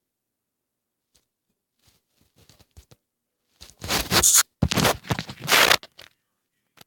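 Rough scraping and rustling close to the microphone: a few faint scratches, then two loud stretches of friction noise about four and five seconds in.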